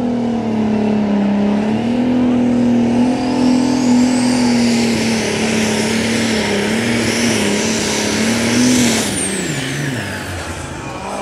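Multi-turbocharged Super Stock pulling tractor engine running flat out under load, with a high turbo whistle that rises a few seconds in and then holds. About nine seconds in the engine comes off the throttle: its note and the turbo whistle both slide down and the sound fades.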